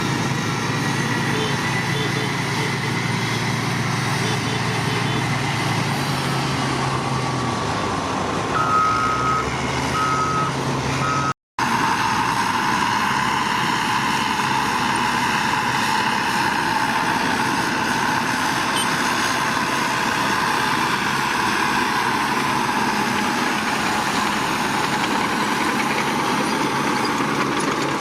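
Heavy construction machinery engines running steadily, with a reversing alarm beeping about three times, a second apart, around nine to eleven seconds in. The sound then cuts abruptly to another machine running, with a stronger mid-pitched grinding noise.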